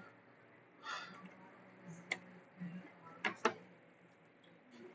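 A few sharp clicks in a quiet room: a brief soft rustle about a second in, one click a little after that, then two quick clicks close together.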